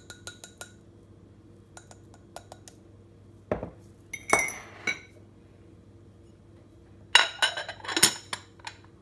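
Stainless mesh tea-infuser ball ticking lightly against a glass jar of fennel seeds, then clinking into a ceramic mug about halfway through. Near the end the glass jar gives a louder run of clinks and knocks as it is handled.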